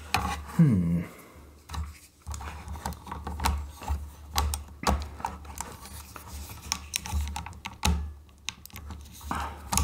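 Hands working a toy starship's warp nacelle onto its pylon: irregular small plastic clicks, taps and scrapes, with the part refusing to seat.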